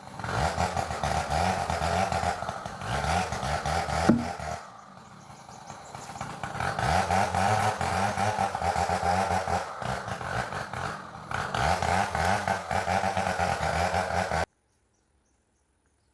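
Chainsaw running and revving, its pitch rising and falling again and again as it cuts, easing off for about two seconds around four seconds in. The sound cuts off abruptly near the end.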